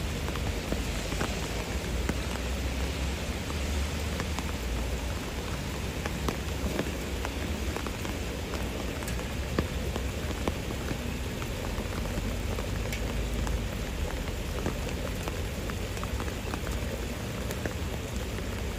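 Steady rain falling on a river's surface, an even hiss scattered with many small separate drop hits.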